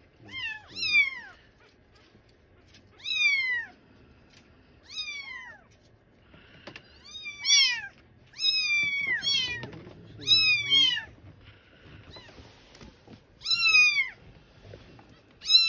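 Young kitten mewing repeatedly: about ten short, high-pitched mews, each falling in pitch, some coming in quick pairs.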